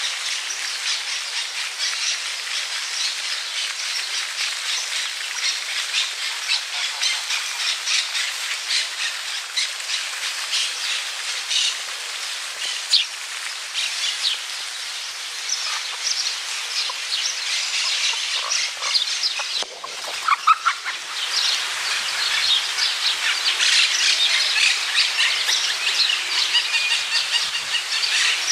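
Many small birds chirping at once in a dense, continuous chorus of short, high chirps, with a brief louder, lower call about two-thirds of the way through.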